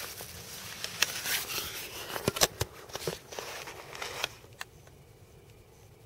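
Dry fallen leaves and twigs crunching and rustling underfoot: a run of sharp crackles that stops about four seconds in.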